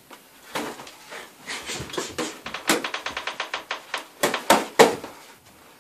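Boxing gloves landing on gloves and headguards during sparring: a series of short thuds, with a fast even run of them in the middle and a few louder hits near the end.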